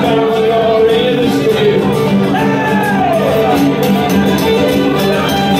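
Live acoustic folk band playing: fiddle over strummed acoustic guitar, with a sliding melodic phrase about halfway through.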